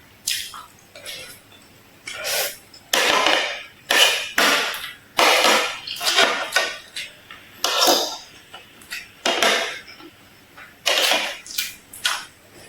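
Close-miked eating: chewing and crunching of food in irregular noisy bursts, roughly one every second.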